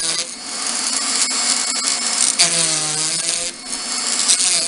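Handheld rotary tool running at high speed with its cutter grinding a spiral groove into a wooden spindle. The motor pitch sags and recovers about halfway through as the cutter bites into the wood.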